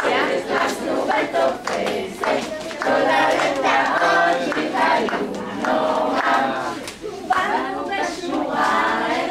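A group of young children singing and calling out together, with hand clapping in the first couple of seconds.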